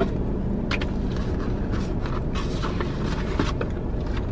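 Steady low rumble inside a car, with light paper rustling and crinkling here and there as photo prints are handled in their paper envelope.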